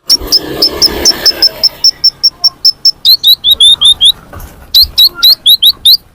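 Lure call of a konin ("kolibri ninja"), a fast string of short, high chirps at about five a second. The chirps first ring near one pitch, then turn to lower down-slurred notes. There is a brief pause after about four seconds, and a hiss sits under the first two seconds.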